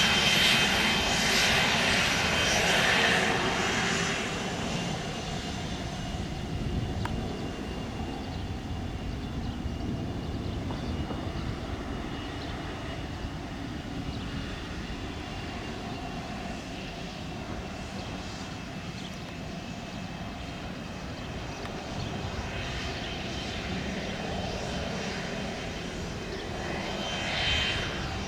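Twin turbofan engines of a Cessna Citation Latitude business jet. They are loud for the first few seconds and fade away, then settle to a steady lower rumble, which swells briefly near the end.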